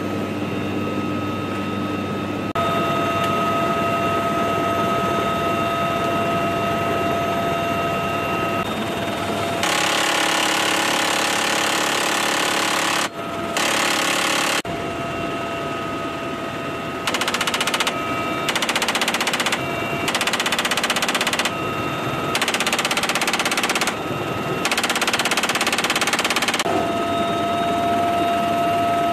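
Helicopter turbine whine and rotor noise inside the cabin. About ten seconds in, a door-mounted six-barrel GAU-17/A minigun fires some seven bursts, each one to three seconds long and so fast that the shots run together into one continuous rasp.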